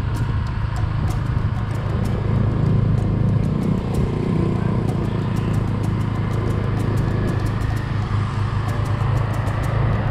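Motor scooter being ridden at a steady cruise: its small engine and the tyres on the road make a steady low drone.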